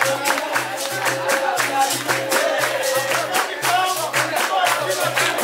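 Capoeira roda music: berimbaus and a pandeiro playing a steady rhythm, with hand clapping and group singing.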